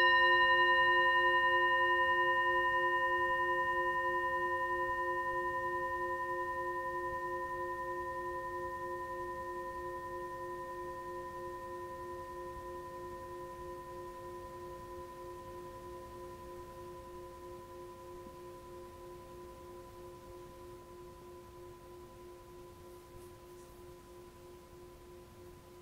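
A struck bell rings on after a single strike, its several tones fading slowly and evenly over about twenty-five seconds. The lowest note has a gentle, steady pulsing waver.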